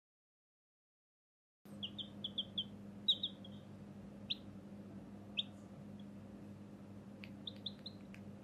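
Baby chick peeping in short high peeps: a quick run of them about two seconds in, then single peeps spaced out, and a few more near the end, over a faint steady hum. The sound cuts to dead silence for the first second and a half or so.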